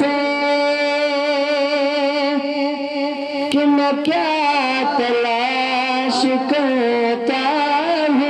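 A man's solo voice in melodic Islamic devotional recitation, sung into a handheld microphone. He holds one long note for about four seconds, then moves into ornamented, wavering phrases.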